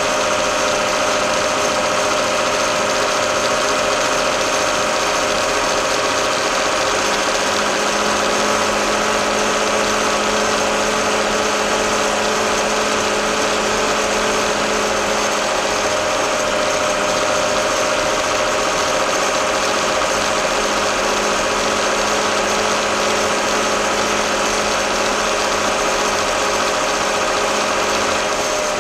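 Case 885XL tractor's four-cylinder diesel engine running at a steady speed as the tractor drives along a road.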